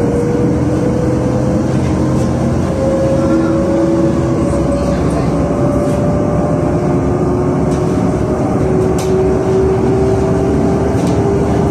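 Cabin noise of a moving LiAZ 5292.67 city bus, which runs on compressed natural gas with a YaMZ-53624 engine: a steady rumble and road hiss under a whine. The whine rises slowly in pitch, drops once about seven seconds in and climbs again. A few light clicks and rattles come from the body.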